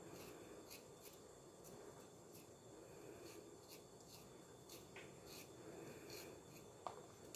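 Faint, light scrapes of a small knife against a piece of boiled pig's foot, about one or two strokes a second, with a sharper tick near the end.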